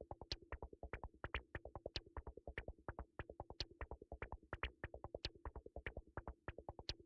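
Faint electronic background music: a fast, even ticking beat over a low steady tone.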